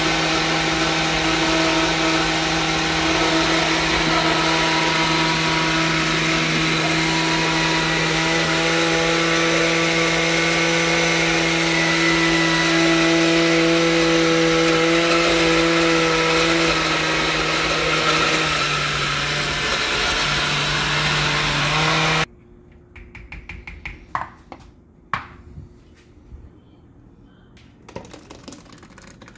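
Oster countertop blender running steadily as it purées sofrito vegetables, its motor note dipping slightly shortly before it stops abruptly about three-quarters of the way through. A few light knocks follow.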